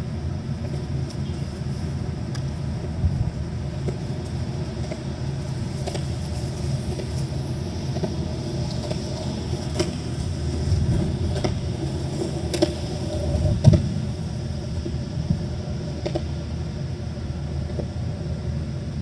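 Steady low outdoor rumble, with a few faint ticks and clicks scattered through it.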